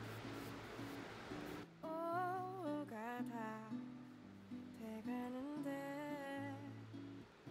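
Chill lo-fi hip-hop background music with guitar; a wordless, hummed melody line comes in about two seconds in over a steady bass line.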